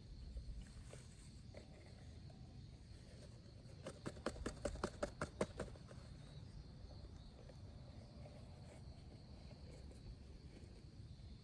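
A quick, fairly even run of about ten sharp clicks near the middle, from popcorn kernels in an antique bed-warming pan over a campfire. Behind them is a faint, steady, high insect-like chirring.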